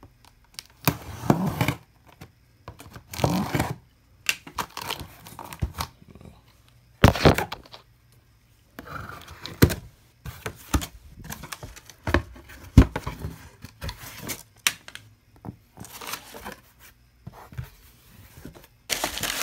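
Knife cutting through packing tape and a cardboard shipping box, then tearing, scraping and the knocks of the box flaps and the boxed monitor being handled, in irregular bursts with several sharp knocks.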